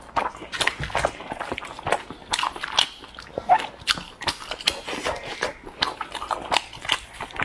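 Wet, sticky squelches and irregular clicks of plastic-gloved hands tearing apart rolled meat coated in chili-oil sauce, several sharp smacks a second.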